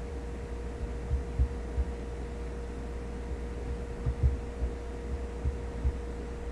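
A steady hum with a thin constant tone, and scattered soft low thumps, a few of them about a second apart, more frequent in the second half.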